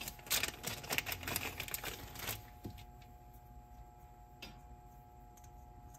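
Small plastic-and-metal clicks and light rattling as hands work a cassette deck's transport, handling and turning a rubber drive belt on the flywheel. The clicking is busiest in the first couple of seconds, then it quietens to an occasional tick over a faint steady hum.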